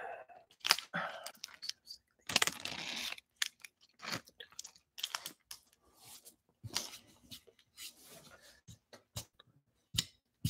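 Irregular small clicks, taps and rustles, with a short rustling noise about two to three seconds in.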